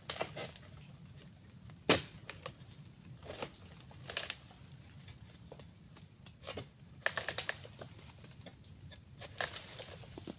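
Long-handled pole sickle cutting into the stalk of an oil palm fruit bunch: a series of separate sharp knocks and cracks, the loudest about two seconds in and a quick run of them about seven seconds in.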